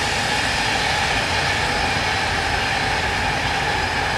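Passenger train running past, a steady rush of wheels on rail with a faint steady hum running through it.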